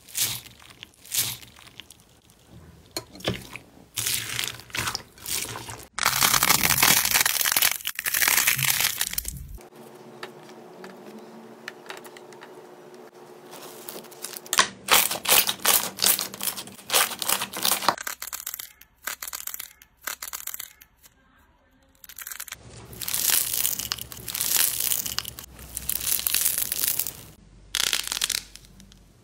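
Slime being pressed and worked by hand in a string of short clips: the crackling crunch of foam beads in slime under a pressing hand, and squishing of sticky slime and clay, in bursts with quieter pauses between.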